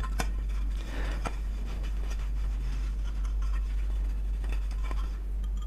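A cloth rag wiping and rubbing a ceiling fan's motor cover: faint rubbing and scraping with a few light clicks, over a steady low hum.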